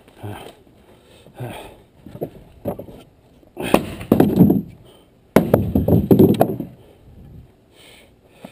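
A run of irregular knocks and clatters, like hard objects being handled and dropped, with two louder stretches of clattering a little after the middle.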